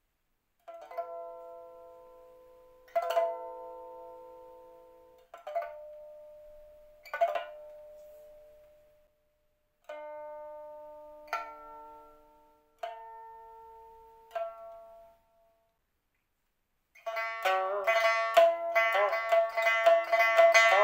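Pipa played in harmonics (fanyin): eight single plucked overtone notes, each ringing out and fading slowly. After a short pause near the end, a quick, louder run of many plucked notes begins.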